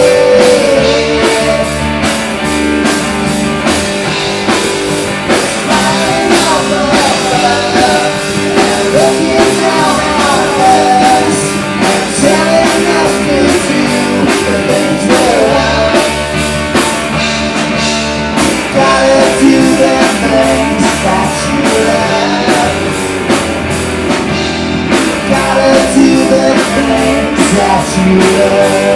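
Live rock band playing loudly: distorted electric guitar, bass guitar and drum kit, with singing.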